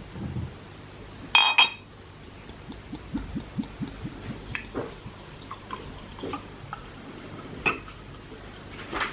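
Tableware being handled: two sharp ringing clinks in quick succession about a second and a half in, then a run of soft knocks and small clicks, with another sharp knock near the end.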